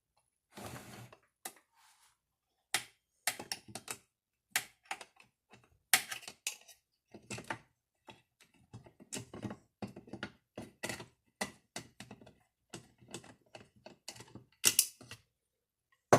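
Irregular clicks, taps and clatter of tools and metal parts being handled while a chainsaw is taken apart, with a short scrape about a second in and a few sharper knocks among the lighter ticks.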